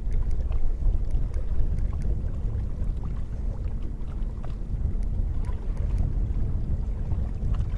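Wind rumbling across the microphone on a small boat on open water, with a faint steady hum and a few light ticks.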